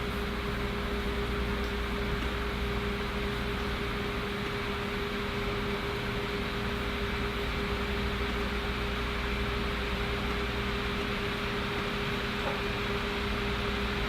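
Steady mechanical hum: an even hiss with a constant mid-pitched tone and a low hum beneath it, unchanging.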